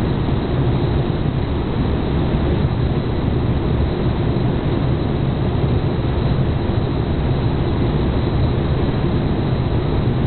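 Steady, even drone of aircraft cabin noise, heaviest at the low end, with no knocks or clatter.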